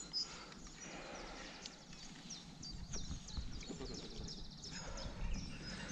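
Small birds chirping and trilling, with short high calls scattered throughout, over a faint steady outdoor background.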